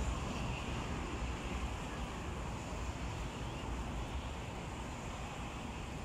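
Wind rumbling on the microphone over a steady outdoor hiss, with no distinct bird call.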